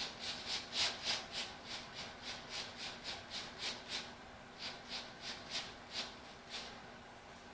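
Rubber rubbing in quick rhythmic strokes, about three or four a second, as an inner tube is worked by hand into a tractor front tire. The strokes pause briefly about four seconds in, then carry on for a few more.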